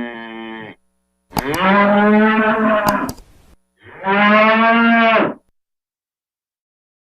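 A bull mooing: the end of one long moo, then two more long moos on a steady low pitch, with two sharp clicks during the first of them.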